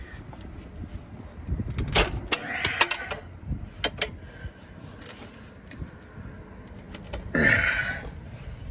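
Metal clanks, knocks and a brief rattle of a bead-breaker tool and tire irons working against a tractor tire's steel rim, with a louder scraping burst near the end.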